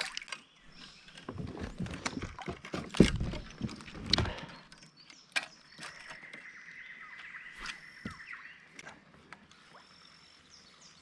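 Knocks and bumps on a fishing kayak, a cluster of sharp hits in the first few seconds. Later a steady high-pitched tone runs for about three seconds in the background.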